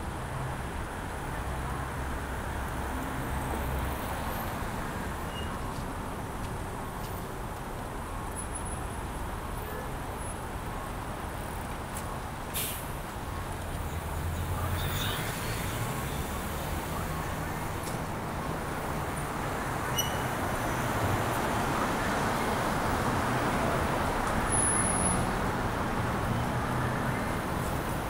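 Steady city road traffic around a bicycle: engines of passing cars and buses humming under continuous tyre and road noise. A single sharp click comes about twelve and a half seconds in.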